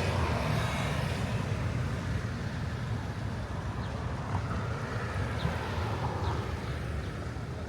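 Steady low rumble of outdoor city ambience, with a few faint brief high chirps.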